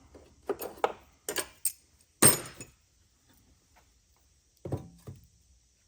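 Light metallic clicks and clinks, then a loud sharp metal clank a little over two seconds in that rings briefly, and a softer knock near the end: metal tools and parts being handled and set down.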